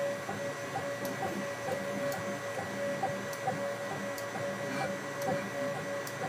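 CNC milling machine set up as a 3D printer, running a print: a steady whine with soft pulses about two or three times a second and occasional faint ticks.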